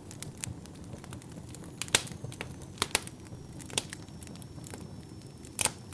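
Wood fire crackling in a fireplace: irregular sharp pops and snaps, the loudest about two seconds in and near the end, over a steady low rustle of burning.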